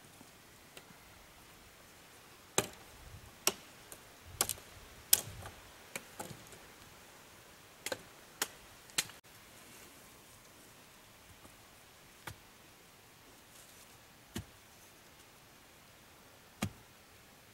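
Irregular sharp clicks and knocks, about a dozen, most of them bunched in the first half and a few spaced out later, over a faint steady hiss.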